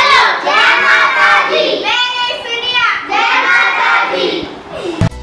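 A group of young girls singing together in loud, short phrases about a second long, which break off abruptly near the end.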